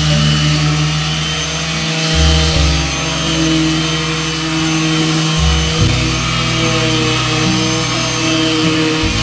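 Background music of sustained chords over held bass notes that change every second or two.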